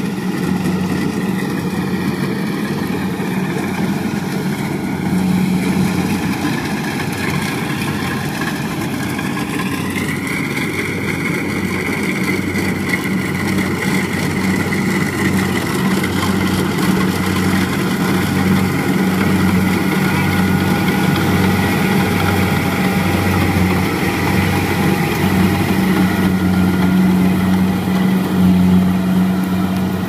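Kubota DC70 rice combine harvester running under load while it cuts and threshes: a steady diesel drone with an even pulse underneath and a higher whine that rises slightly about ten seconds in.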